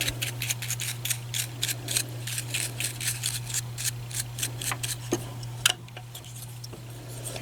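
A small brush scrubbing lint out of a Janome MC6650 sewing machine's bobbin case area: a quick, irregular run of light ticks and scratches, thinning out near the end.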